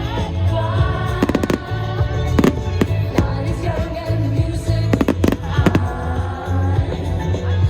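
Fireworks going off in a string of bangs and crackles, several at a time around a second and a half in and again around five seconds in, over pop music with singing and a heavy bass beat.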